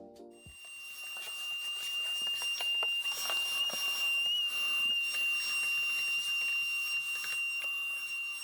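A steady high-pitched whine holding one pitch without pulsing, over a faint hiss with a few light clicks and knocks.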